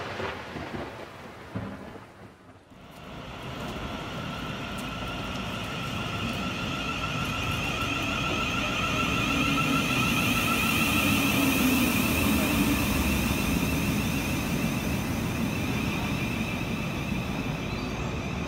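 A booming intro hit dies away over the first couple of seconds. Then a Class 707 electric multiple unit (Siemens Desiro City) stands at the platform with a steady electric hum and two high, evenly held whines over a low rumble, growing a little louder in the middle.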